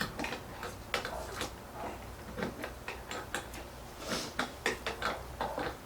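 Irregular small clicks and taps of metal parts being handled: a wrench on the collet nut of a trim router while a router bit is being fitted and tightened.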